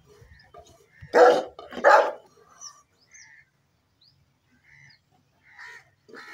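A dog barks twice, loudly, about a second apart, followed by a few faint short sounds near the end.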